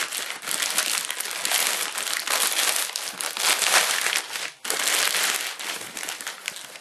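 Packaging crinkling and crackling as a shipping package is worked open by hand, with a brief stop about four and a half seconds in.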